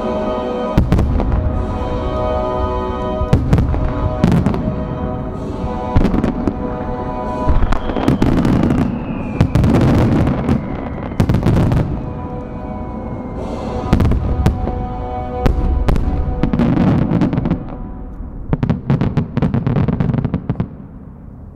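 Aerial firework shells fired in a dense finale volley: rapid cracks and deep booms over music with sustained notes. The barrage thins out in the last few seconds.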